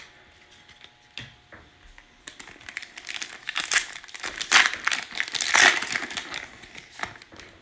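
Panini Prizm basketball card pack's shiny plastic wrapper being torn open and crinkled by hand as the cards are pulled out. It is a crackling rustle of a few seconds that starts about two seconds in and is loudest a little past the middle.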